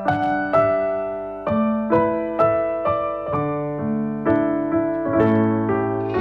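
Background music: a slow, gentle piano melody, single notes struck about twice a second and left to ring, with lower notes sustained under them from about halfway through.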